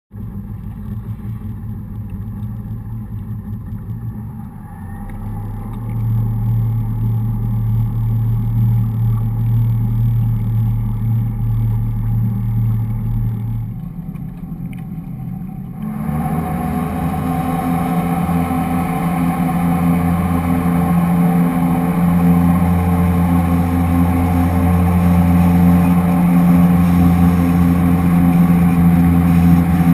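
Motorboat engine running at low speed, its pitch stepping up about five seconds in and falling back a little before halfway. Just past halfway it opens up as the boat gathers speed, and a steady rush of water along the hull joins it, growing slightly louder toward the end.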